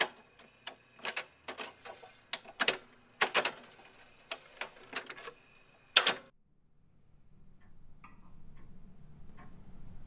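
A run of sharp, unevenly spaced clacks, each with a short ring, stops about six seconds in. A fast, even ticking then fades in and grows louder.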